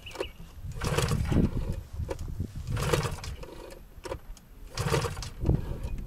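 Rotax 582 two-stroke engine of a microlight trike being pull-started with the recoil rope, turning over with a short rumble on each pull, about every two seconds, and not catching. The engine has been cutting out and now won't start, and the owner thinks he may have flooded it.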